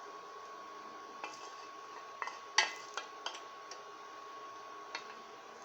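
A cooking utensil clinking and knocking against cookware about seven times, the loudest knock about two and a half seconds in, over a faint steady high hum.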